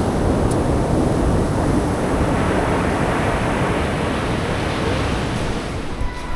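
Sea waves washing on a beach, a steady surging rush that swells and eases, with wind buffeting the microphone.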